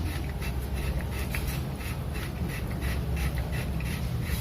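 A hand tool tightens a bolt on a motorcycle's rear brake: a run of light, fairly regular clicks over a low steady hum.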